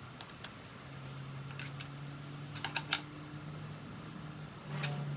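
Irregular light metallic clicks and taps of a wrench on a fuel-rail crossover fitting being snugged up, with a small cluster of clicks about midway and one more near the end, over a low steady hum.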